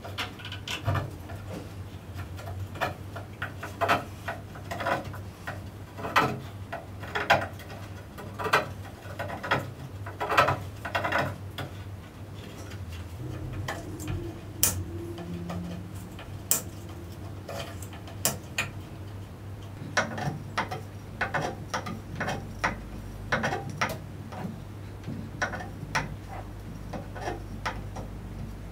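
Irregular light clicks and knocks, a few a second, over a steady low hum, with a few sharper, brighter clicks in the middle.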